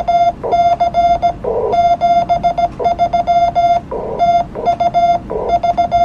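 Morse code sent as a CW tone on an amateur radio: one steady mid-pitched beep keyed rapidly on and off in dots and dashes, with short bursts of hiss in some of the gaps between characters.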